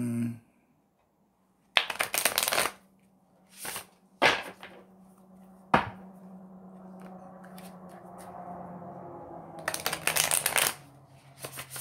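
Tarot cards being shuffled by hand in short rustling bursts: about two seconds in, around four seconds, and again near the end, with a sharp snap of the deck near the middle. A faint low hum sits under the quieter stretch.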